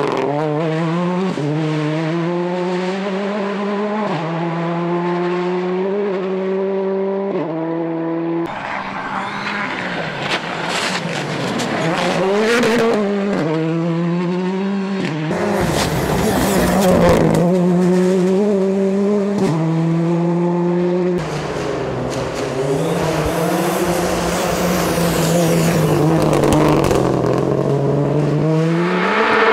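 Rally car engine heard from the cabin, accelerating hard through the gears: its pitch climbs, then drops sharply at each upshift, again and again. Some stretches are loud tyre and road noise, with the engine falling back as the car brakes and corners.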